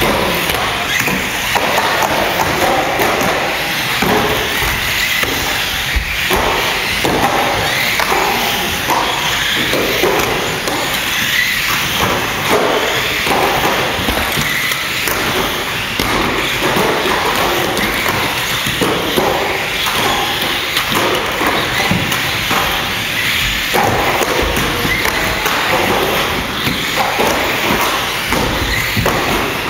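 1/12th-scale radio-controlled stock cars racing round a table-top oval, with a constant run of thuds and taps as the cars knock into each other and the track's edge boards.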